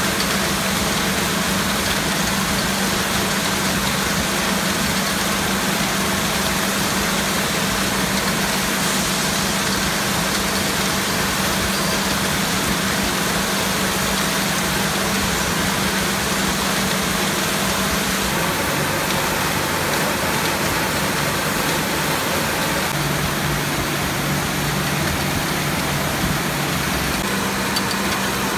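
Fruit packing-line machinery running: a steady mechanical whir of the conveyor and sizer, with a low hum that shifts in pitch about two-thirds of the way through.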